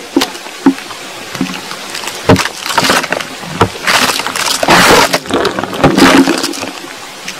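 Underground recording, made about 5 m down, of soil trickling and sliding with water: irregular rushes of gritty noise broken by sharp cracks and knocks. The recordists present it as the sound of tunnel-digging work. It cuts off suddenly at the end.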